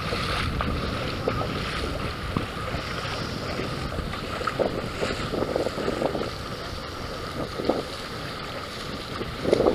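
Wind buffeting the microphone over shallow open water, with light, irregular splashing of feet wading through ankle-deep water.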